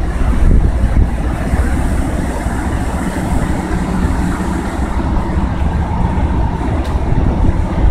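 Wind buffeting the microphone over a steady low rumble of engines.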